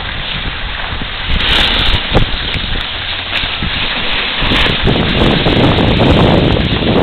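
Wind rushing over the microphone of a moving camera, mixed with the scraping hiss of a snowboard sliding over packed snow.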